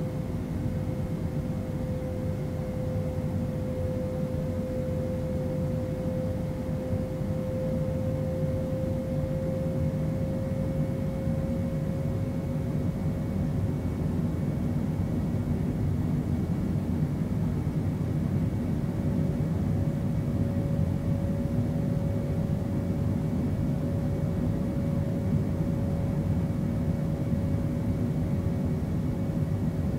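Boeing 767 jet engines heard from inside the cabin: a steady deep drone with a single hum on top that creeps slightly upward in pitch over the first half, then holds.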